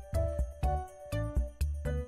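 Background music with a steady beat: bass notes about twice a second under a melody.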